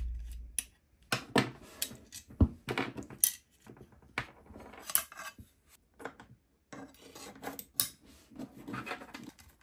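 Screwdriver undoing the screws at the bottom of an aluminium target plate, then the plate worked loose from its black metal hinged base: irregular metal clicks, taps and clinks, the sharpest about two and a half seconds in.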